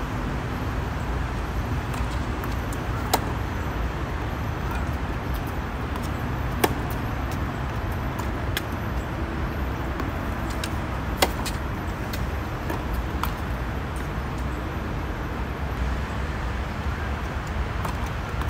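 Tennis balls struck by racquets: sharp pops every one to three seconds, the loudest about three, six and a half and eleven seconds in, over a steady low rumble.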